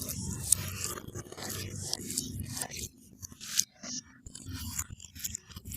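Close-miked eating sounds: chewing, biting and scraping, heard as a run of short sharp clicks and crackles over a low hum.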